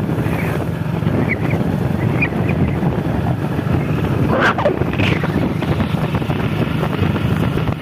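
Motorcycle engine running steadily while riding, with strong wind rushing over the microphone. About halfway through, a brief higher-pitched sound rises and falls.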